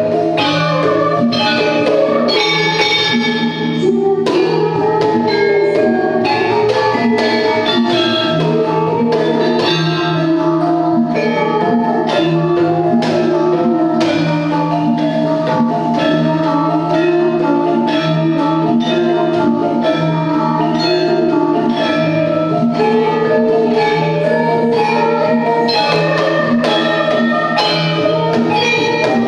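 Javanese gamelan ensemble playing: bronze metallophones ring in rapid interlocking strikes over lively jaipong-style kendang drumming, with a steady low gong tone underneath.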